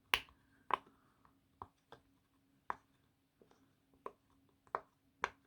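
Silicone pop-it fidget toy bubbles being pushed through one at a time, giving about eight short, sharp pops at uneven intervals.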